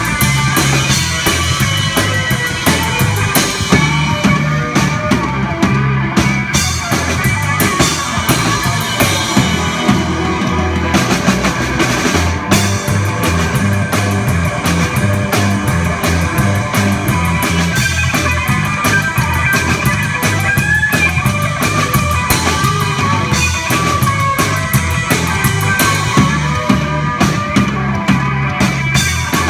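Live band playing a rock number on electric guitar, upright double bass and drum kit, with a steady driving drum beat and a prominent bass line.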